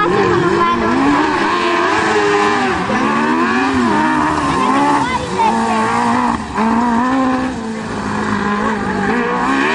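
Piaggio Ape three-wheeler racing off-road, its small engine revving up and down over and over as it is driven through the turns.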